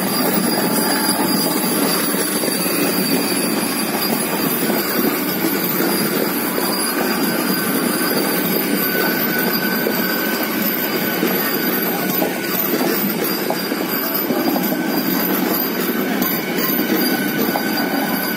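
Vande Bharat Express electric multiple unit coaches rolling slowly past on arrival, a steady rumble of wheels on rail. A high wheel squeal comes in for a few seconds around the middle.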